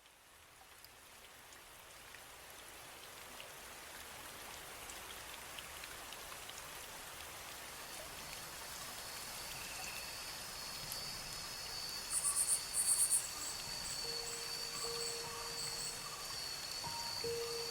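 Recorded rain, a steady even hiss fading in gradually. A steady high whine joins about halfway through, with two short bursts of chirping about twelve seconds in and a few soft held low notes near the end.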